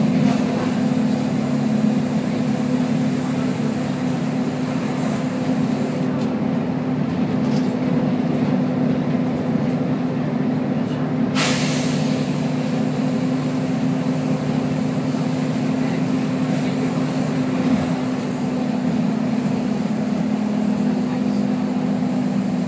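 Volvo B10BLE bus's diesel engine running steadily with a continuous low drone. About halfway through comes one short, sharp air hiss from the bus's air system.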